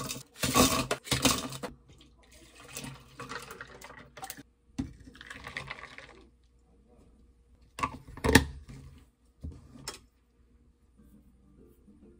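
Ice cubes dropped clattering into a tall tumbler, followed by milk and espresso poured over the ice. Two more sharp knocks come later.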